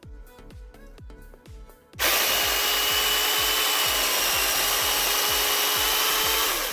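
Small battery-powered chainsaw (pruning saw) starts abruptly about two seconds in and runs at a steady high whine while cutting firewood. Its pitch drops as it winds down near the end. Music with a steady beat plays before and beneath it.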